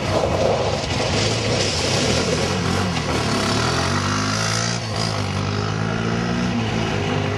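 Several kart engines running at once, their pitches rising and falling in overlapping sweeps.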